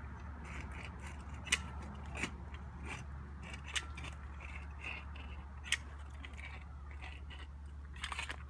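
Caulking gun run along a roof shingle laying a thin bead of sealant: scattered sharp clicks over a steady low hum.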